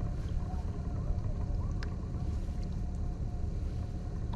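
Small fishing boat trolling: a steady low rumble of the boat's motor and the water, with a faint steady hum above it.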